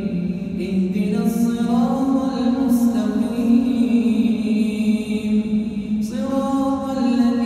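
A man's melodic Quran recitation, the imam's voice held in long, drawn-out notes that slide between pitches. A new phrase starts about a second in and another about six seconds in.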